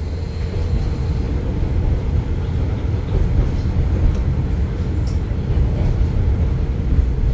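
A diesel train running on the San'in Line, heard from inside the carriage: a steady low rumble with a constant hum over it and a few faint ticks.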